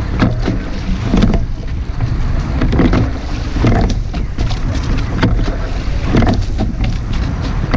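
A rowing shell under way with a crew rowing: a knock from the oarlocks and a rush of water come with each stroke, repeating every second or two. Steady wind noise on the boat-mounted microphone runs underneath.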